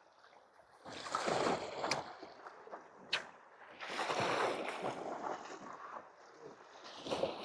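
Sea waves washing against shore rocks, swelling and falling back twice, with a few sharp clicks between.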